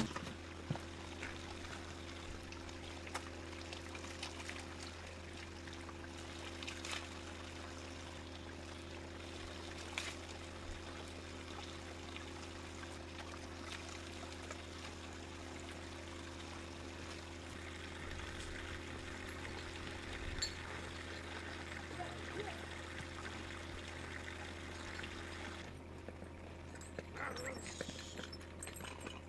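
Thin stream of water pouring steadily from a pipe spout onto stones, with a few faint knocks. The pouring cuts off near the end.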